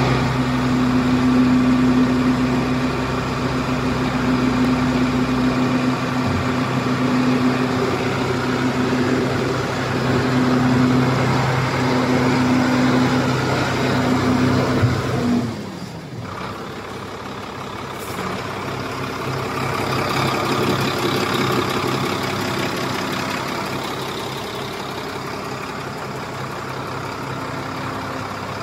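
Diesel engine of a Howo dump truck running with a steady hum, which falls away about halfway through to a quieter running sound.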